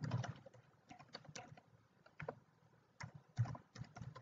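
Typing on a computer keyboard: irregular keystrokes in short runs with pauses between them.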